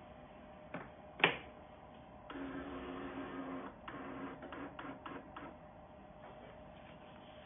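EraSmart A3 DTF printer's motor running for about a second and a half with a steady whir, then in a few shorter stop-start runs with clicks. A single sharp click, the loudest sound, comes about a second in, before the motor starts.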